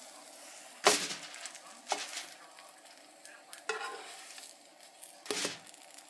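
A cooking utensil scraping and knocking in a skillet, about four sharp strokes with the loudest about a second in, over the faint steady sizzle of a pancake frying.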